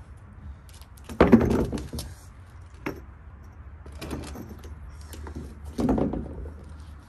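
A wooden plank set on a balance pad knocking and clattering on brick paving: a loud clatter of knocks about a second in, lighter knocks in the middle, and another louder clatter near the end as it is lifted and set back down.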